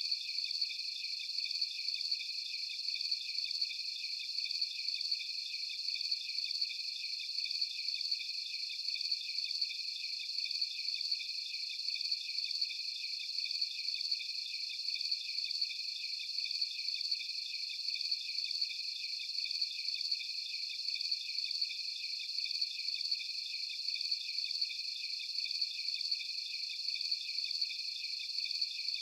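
Night chorus of crickets: many trilling at once in several overlapping pitches, with an even, unbroken rapid pulsing.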